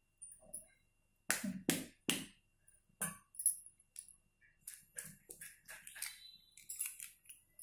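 Raw egg being cracked by hand over a steel mixing bowl: three sharp knocks in quick succession, one more a second later, then a run of small clicks and crackles as the shell is pulled open.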